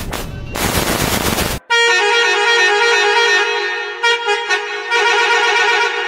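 A school bus horn sound effect: first a harsh noisy burst that breaks off twice and stops abruptly, then, just under two seconds in, one long steady horn blast of several stacked tones that fades out near the end.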